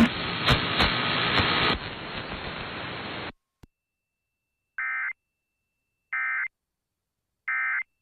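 The tail of an FM radio broadcast, noisy and narrow-band, cuts off abruptly about three seconds in. Then come three short, identical digital warbling bursts about 1.3 s apart: the Emergency Alert System end-of-message (EOM) data tones.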